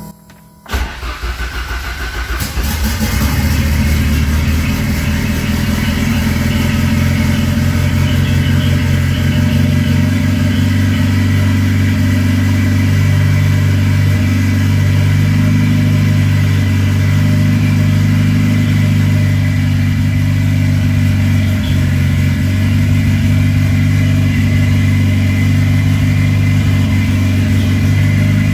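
Freshly rebuilt turbocharged Ford Escort engine being cranked by the starter for a second or two, catching, and then idling steadily through an open exhaust, heard from inside the car.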